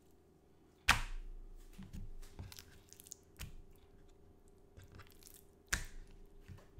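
Raw chicken breast slapped down onto a bamboo cutting board with a sharp thud about a second in, then turned over with soft handling sounds and set down again with a second thud near the end.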